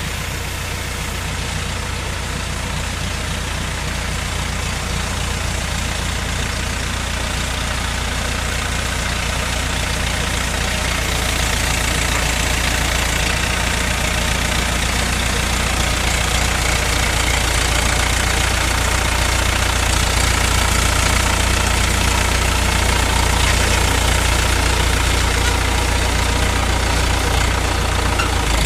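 Diesel engine of an ACE mobile crane running steadily, a low, even engine rumble that grows slowly louder.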